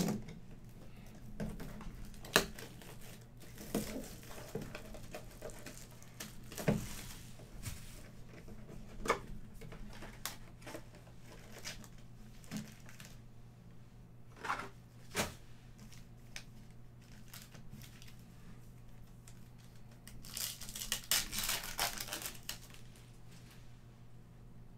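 A 2020 Donruss Elite football card box being opened and its foil packs crinkled and torn open, with scattered sharp clicks of cardboard and cards being handled. There is a longer stretch of crinkling about twenty seconds in.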